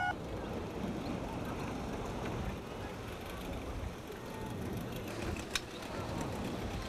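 Steady low rumble and hiss of a boat idling on open water, with one sharp click about five and a half seconds in.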